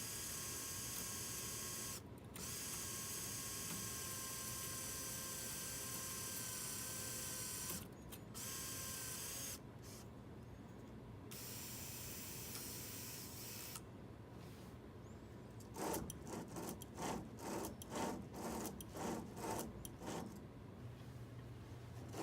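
Small power drill or driver running steadily with a whine, stopping briefly twice and then for good, followed near the end by a run of rhythmic mechanical strokes about two a second, as when a bolt is worked tight to fix an aluminium extrusion to a base.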